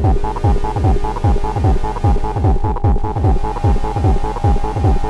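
Electronic music from an Amiga demo intro's soundtrack: a fast run of repeated kick-drum hits, each falling in pitch, under a steady held tone.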